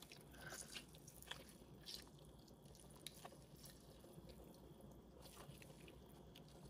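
Faint, irregular small squishes and drips as a lemon is squeezed in a gloved hand, its juice dripping into a bowl of water.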